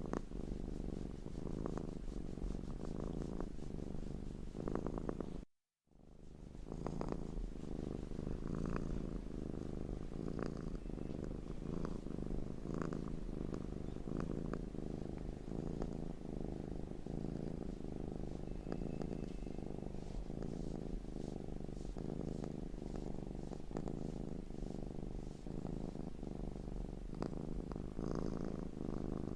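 Domestic cat purring steadily and closely, a rapid low rumbling pulse, broken by a short drop to silence about five and a half seconds in.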